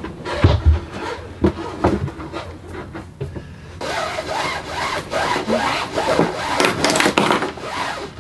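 Electrical cable being pulled by hand through a greased conduit: a few knocks in the first two seconds, then a long, uneven rubbing and scraping as the cable is hauled through.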